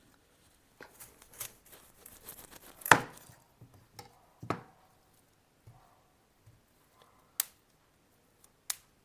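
Knife cutting broccoli on a cutting board: irregular crunchy knocks, the loudest about three seconds in, then sparser sharp clicks near the end.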